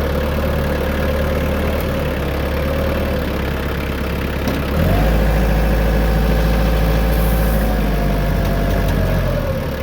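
McCormick X1.45 tractor engine idling, then running at higher revs for about four seconds from about halfway before dropping back to idle, as the loader bucket is worked.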